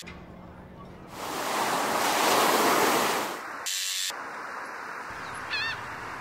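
A sea wave washing in, swelling and fading over about two seconds, followed by a short burst of hiss and a brief gull call near the end.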